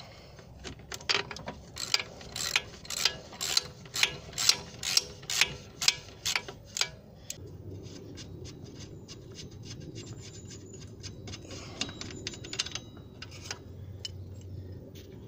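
Socket ratchet clicking as it undoes the top nut of an anti-roll bar drop link, with the link's stud held on its flats by a spanner. Sharp strokes come about twice a second for the first several seconds, then turn to fainter, quicker clicking as the nut loosens.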